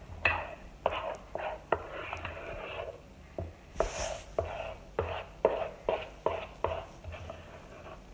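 A spoon stirring thick cookie dough by hand in a stainless steel bowl: repeated scraping strokes against the bowl, about two a second, with one louder, hissier scrape about four seconds in.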